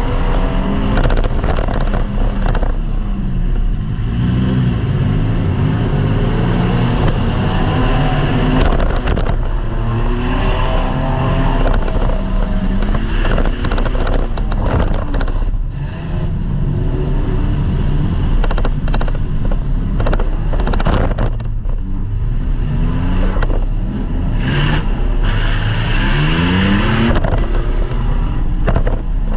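Demolition derby car's engine heard from inside the cab, its pitch rising and falling as it revs up and down, with a rising rev near the end. Several sharp knocks and bangs come through along the way.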